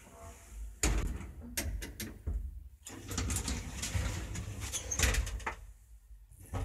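Elevator sliding doors working, with irregular knocks and rattles, and a low steady hum that sets in about three seconds in. A sharper knock comes right at the end.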